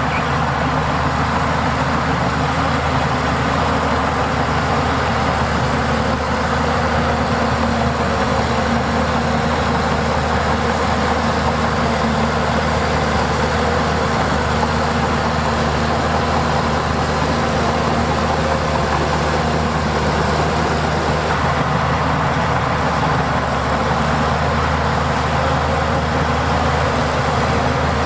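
Heavy diesel earthmoving machinery running steadily, its engine note even throughout.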